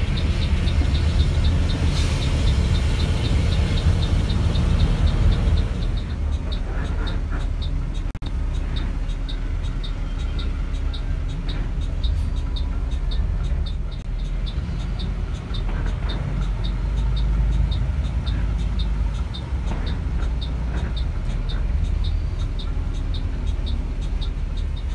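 Heavy bus engine and road noise heard from inside a bus, with the exhaust roar of a bus running just ahead strongest in the first six seconds. After that the rumble drops as the bus moves slowly through a toll-plaza queue. A steady light ticking, about three a second, runs throughout.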